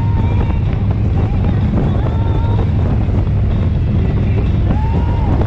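Motorcycle engine running steadily at cruising speed, a constant low rumble under wind noise on the microphone.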